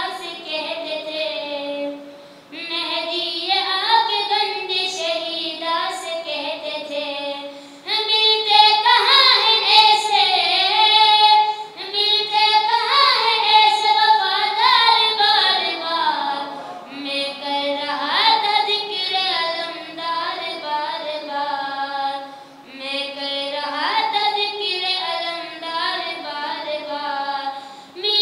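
A boy singing a manqabat, a devotional song, solo into a microphone, in long melismatic phrases with short breaths between them and no instruments.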